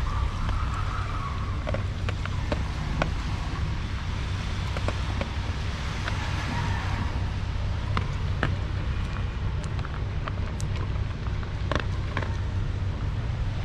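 A dog crunching dry kibble from a plastic tub, heard as scattered sharp clicks and crunches, over a steady low background rumble.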